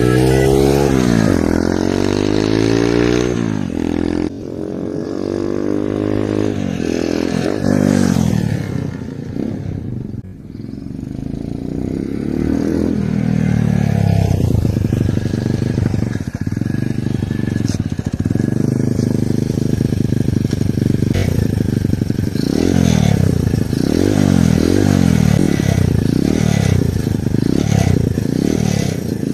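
Single-cylinder engine of a Chinese-made Monkey/Gorilla-style minibike being revved over and over, its pitch rising and falling with each throttle blip. Between them it drops back to a lower run, and near the end the blips come quick and short. The engine is run to track down an abnormal noise of unknown origin.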